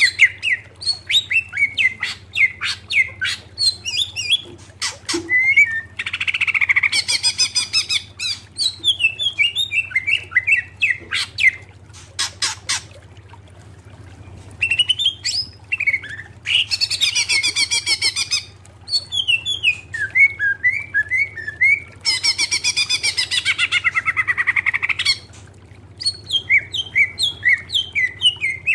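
Male greater green leafbird (cucak ijo) singing loudly: fast rattling trill phrases alternate with runs of short, sliding chirped whistles, with a brief lull about halfway through.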